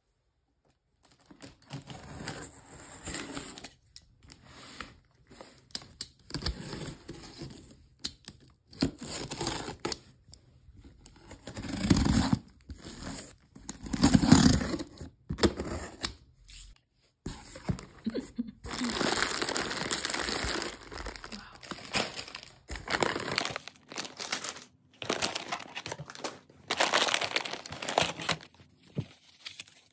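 Packing tape being ripped and peeled off a cardboard box in irregular tears, then plastic snack wrappers crinkling as the contents are handled near the end.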